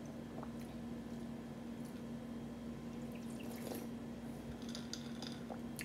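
Sipping iced tea from a glass full of ice cubes: quiet sips and swallows, with a few small clicks from the ice about three to five seconds in. A steady low hum runs underneath.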